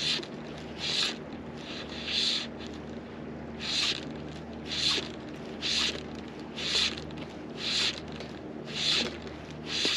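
Fly line being stripped in by hand through the rod guides: a short rubbing swish about once a second, one pull after another, as a floating fly is retrieved in small strips.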